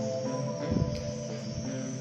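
Background music with sustained, changing notes.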